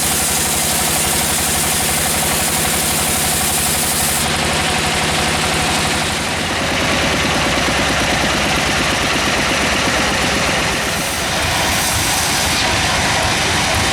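Sawmill machinery engine running steadily, with a hissing high edge that drops away about four seconds in and a shift in the engine's note a few seconds later.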